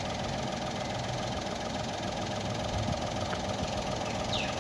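Car engine idling steadily, heard from above the engine with the bonnet open; its oil is treated with Liqui Moly Ceratec ceramic additive, after only 5–10 km of driving. Near the end, two quick high falling chirps.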